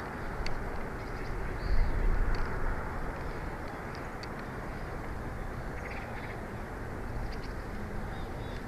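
Steady outdoor rushing noise with faint, short, high bird chirps now and then, and a louder swell about two seconds in.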